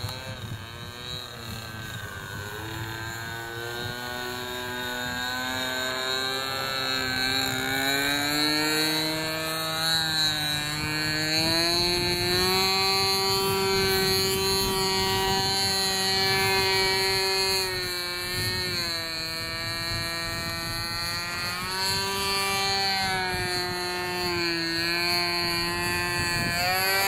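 Model aerobatic plane's small glow engine buzzing in flight. Its pitch climbs over the first dozen seconds, then rises and falls with the throttle and manoeuvres.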